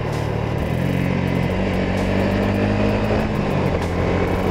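Yamaha Sniper 150 motorcycle's single-cylinder four-stroke engine running under way, with heavy wind rush over the camera. The engine note steps up in the first second and a half, then holds steady.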